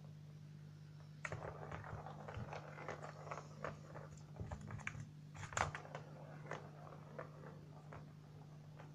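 Plastic circular track cat toy clicking and rattling irregularly as kittens paw at it, starting about a second in and thinning out near the end, with one louder clack a little past halfway.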